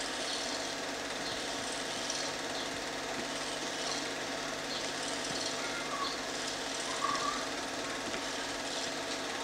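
Film projector running, a steady mechanical whirr, with a brief higher squeak about seven seconds in.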